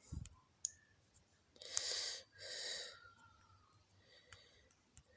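A person breathing out and in close to the microphone, two long breaths one after the other a little over a second and a half in. There is a short low thump at the start, and a few faint clicks.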